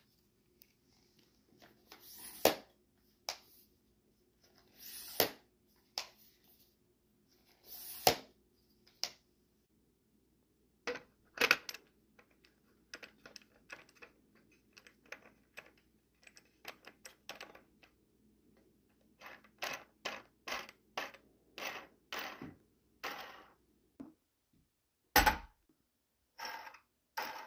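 Clicks, clacks and rattles of metal tripod hardware being handled: a carbon fiber tripod's clamp, rifle saddle and knobs being worked and fitted together. There are single sharp clacks a few seconds apart at first, then a quicker run of small clicks and knocks, and a few sharp knocks near the end as a rifle is seated in the saddle.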